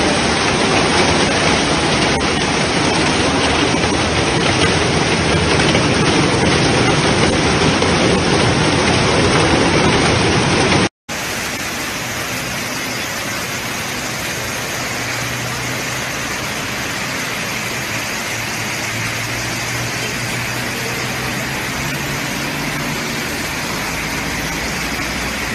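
Steady rush of a heavy downpour. It cuts off abruptly about eleven seconds in and gives way to a second, slightly quieter steady rush with a low engine hum underneath.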